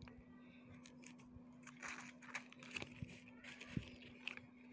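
Faint crinkling and rustling of a newspaper wrapper being handled, with a few soft crackles spread through, over a steady low hum.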